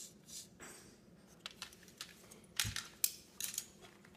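Plastic printer parts being handled by hand: a scatter of light clicks and rattles, with a dull knock about two and a half seconds in as a part is set down.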